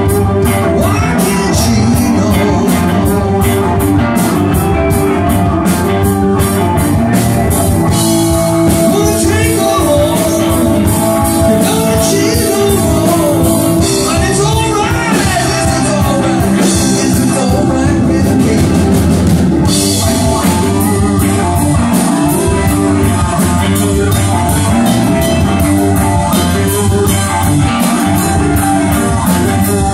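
A live rock band playing loud: electric guitars, bass guitar and a drum kit keeping a steady beat.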